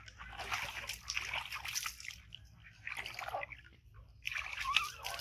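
Water splashing and sloshing in a plastic tub as a baby monkey thrashes about in it, in three bursts of a second or two each.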